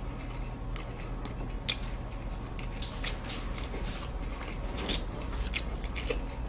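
Close-miked chewing of flaky puff-pastry butterfly pie: scattered crisp crackles and crunches. A steady low hum runs underneath.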